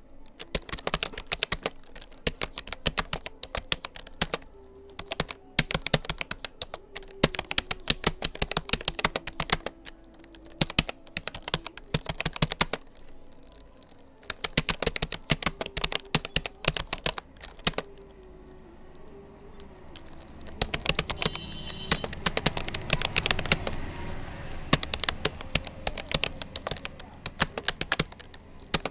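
Rapid keystrokes on a Rapoo computer keyboard during a timed typing test, in quick runs broken by two short pauses. For a few seconds in the last third, a low rushing noise rises under the typing.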